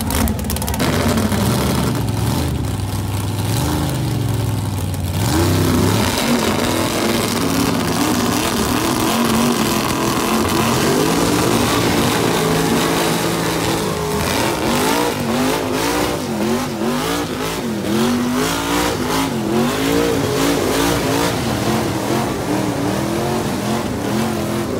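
Mega truck engines revving hard under load in a tug of war, their big mud tires spinning. The pitch steps up about five seconds in, then rises and falls over and over, over a steady rush of noise from the spinning tires and flying mud.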